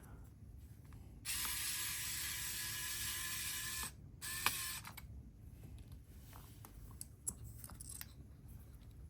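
A small motor whirs steadily for about two and a half seconds, then runs again in a shorter burst, with light clicks of small parts being handled.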